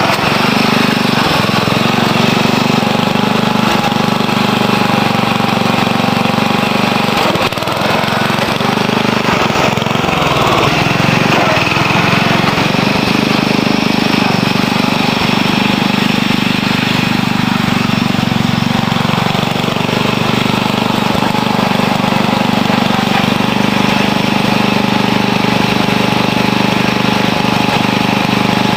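Dynamark lawn tractor's engine running steadily as it is ridden. About eight to eleven seconds in, the engine note dips and wavers.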